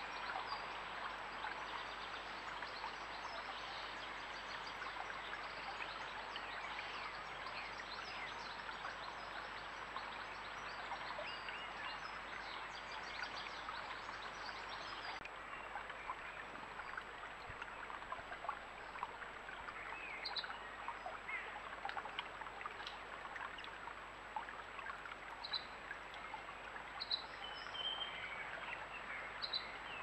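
Small shallow stream flowing steadily over a shallow bed, a constant babble of water. A few short bird calls come in during the second half.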